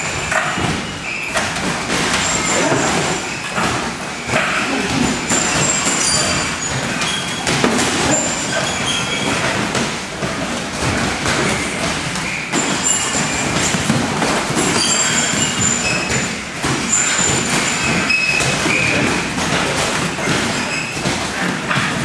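Thuds of gloved strikes and bodies landing on the training mats during sparring and grappling, over a steady, noisy gym din.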